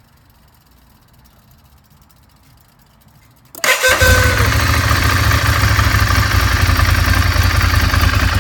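2014 Ducati Monster 796's air-cooled L-twin engine being started about three and a half seconds in: a brief starter sound with a short falling whine, then the engine catches and idles steadily with a deep, even pulse. The owner reports a loud weird noise and hard turning over at every start that a new battery did not cure, and wonders whether it is the clutch.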